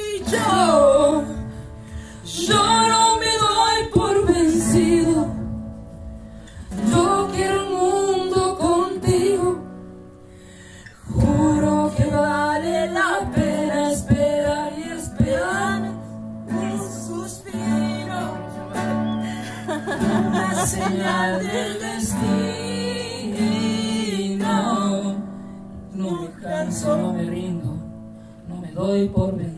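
Singing with an acoustic guitar accompaniment, the voice breaking off briefly between phrases.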